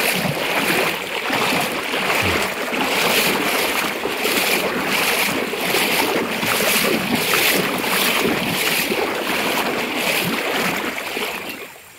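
Steady rush of a fast, shallow, muddy river flowing past reeds.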